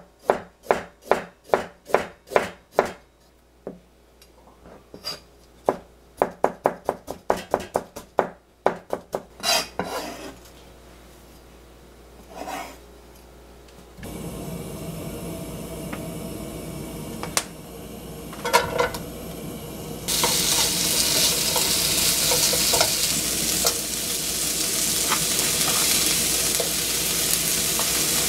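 Knife chopping ginger on a plastic cutting board in quick, even strokes, about three a second, in two runs over the first ten seconds. Then a frying pan on the stove, with a few clatters, and from about two-thirds of the way in a loud, steady sizzle as sliced lotus root and carrot stir-fry in hot oil.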